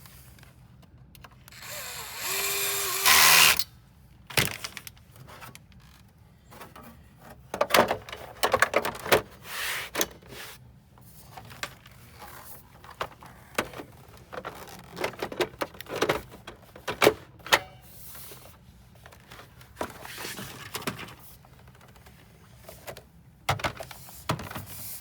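A cordless electric screwdriver runs for about two seconds with a steady whine, louder at the end as it drives a screw home. It is followed by scattered clicks and knocks of computer parts and screws being handled.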